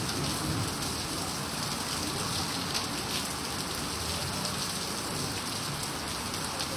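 Heavy rain pouring onto a waterlogged paved yard: a steady hiss of drops splashing into standing water.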